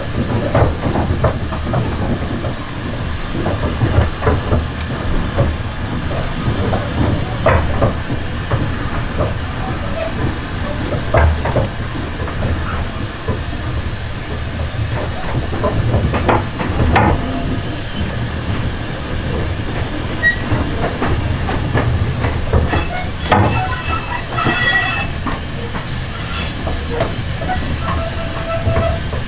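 Railway coach running along the track: a steady low rumble with irregular clicks and knocks of the wheels over rail joints, and brief high wheel squeals near the end.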